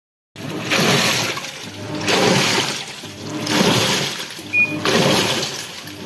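Realme Techlife top-load washing machine churning water in its empty tub on the tub clean program. Rhythmic surges of sloshing and swishing come about every second and a half as the wash action turns back and forth, over a faint steady hum.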